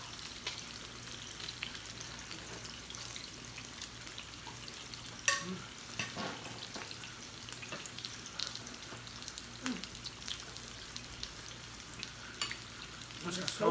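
Meat sizzling steadily on a tabletop Korean barbecue grill plate, with scattered clicks of chopsticks and utensils against the grill and dishes and a sharper knock about five seconds in.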